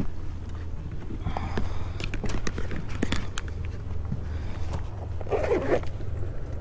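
Clicks, knocks and scuffling of a freshly caught bass being landed and handled in an aluminium jon boat, with a louder scuffle about five seconds in, over a steady low rumble.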